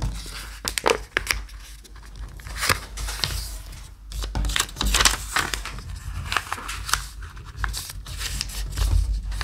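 A sheet of paper being folded by hand into a paper airplane: rustling and crisp scraping as fingers slide over it and press the creases flat against the table.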